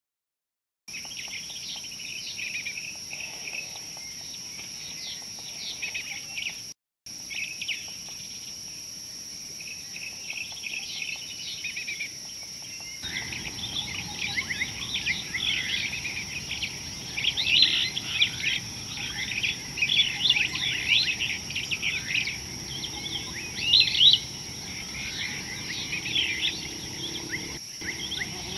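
Many birds chirping and twittering over a steady high-pitched insect drone, the waterhole's natural chorus. It starts about a second in, drops out briefly, then grows louder and busier about halfway through.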